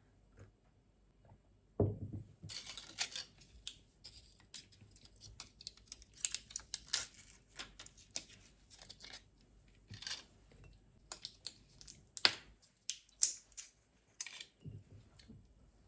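Close handling sounds: a dull thump about two seconds in, then a busy run of crisp clicks, taps and papery rustles as objects are handled, ending shortly before the end.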